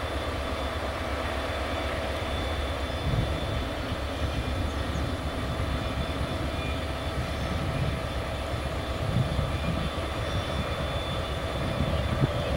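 Freight train cars rolling on the rails: a steady low rumble with faint steady high tones over it, getting a little rougher near the end.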